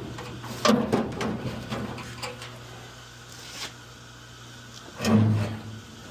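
Knocks and rattles of tools and metal parts being handled, with a louder clatter about five seconds in, over a steady low hum that stops around the same time.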